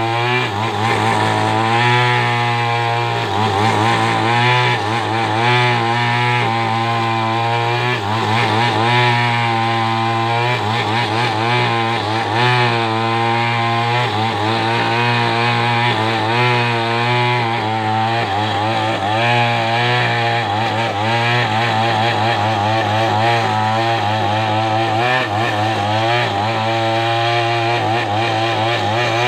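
Two-stroke chainsaw running hard as it rips lengthwise through a coconut-palm log to square it into a beam. Its engine note wavers up and down as the load on the chain changes.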